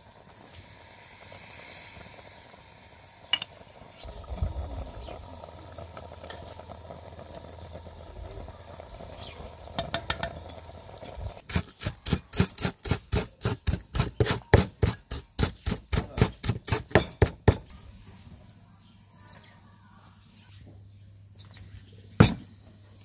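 Stew bubbling and simmering in an open clay pot, then a cleaver chopping fresh herbs on a wooden cutting board, about three chops a second for some six seconds. Near the end, one sharp knock as the clay pot is set down on the board.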